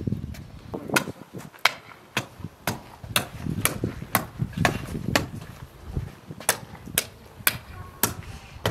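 Pickaxe striking hard-packed earth again and again, breaking up the ground to dig a hole: sharp hits about two a second, each with a dull thud, with a short pause a little past the middle.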